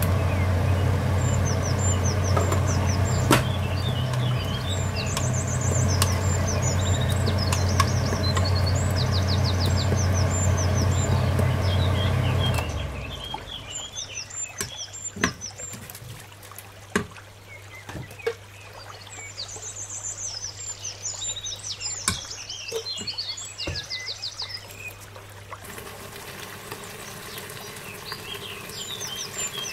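A steady low machine hum for the first dozen seconds or so, which then cuts off. After it, a metal spoon clinks against the electric pressure cooker's metal inner pot a few times. Birds chirp faintly throughout.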